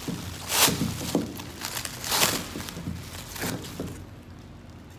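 Thin black plastic bag crinkling as it is handled and opened, with two louder rustles about half a second and two seconds in, then quieter handling with a few light clicks.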